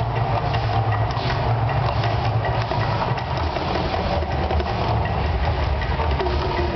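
The Mirage volcano attraction erupting: a loud, steady deep rumble mixed with the dense noise of its gas flames burning on the rock and across the lagoon.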